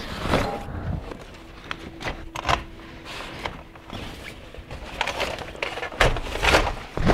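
Knocks, clatter and rustling as a blower door is taken down from a doorway: the fan is lifted out and the frame and nylon panel are handled, with footsteps.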